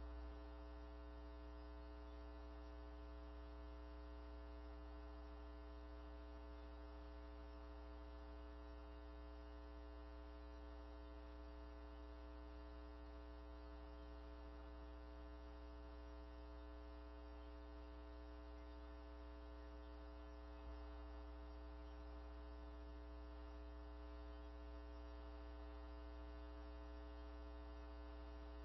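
Steady electrical mains hum with a stack of even overtones, unchanging and with nothing else over it: the background hum of the meeting room's audio or recording system during a lull.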